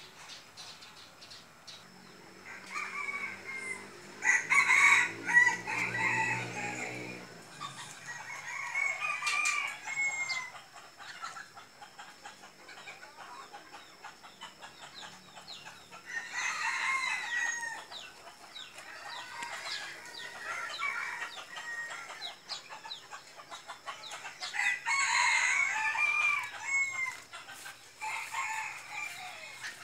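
Roosters crowing again and again, several crows a few seconds apart, with some chicken clucking between them. A low droning hum is heard under the first crows for a few seconds.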